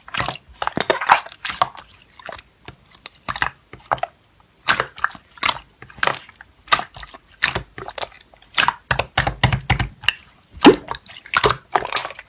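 Slime being squished and poked by hand: an irregular run of short wet clicks and squelches, with a heavier, lower squishing patch about nine seconds in.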